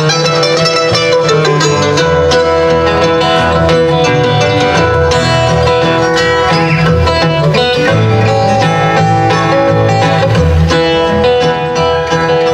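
Bluegrass instrumental break played live: mandolin and two acoustic guitars picking together over a steady beat, with running bass notes on the guitar.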